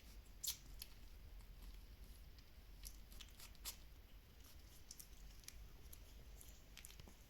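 Faint scattered clicks and rustles of two-week-old Shiba Inu puppies stirring, with a sharper tick about half a second in and another near four seconds, over a quiet low hum.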